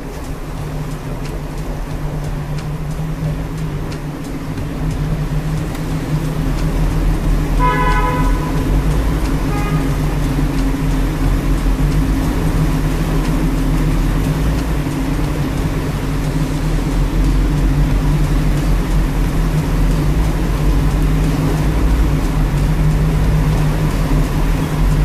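Jeep engine running steadily under way, with a low drone that grows louder about five seconds in as the Jeep enters the tunnel. A car horn toots briefly about eight seconds in, then once more, shorter, about two seconds later.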